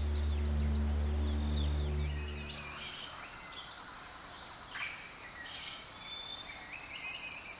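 Forest ambience: a steady high drone of insects with scattered short bird chirps. A low held musical drone carries the first two to three seconds and then stops.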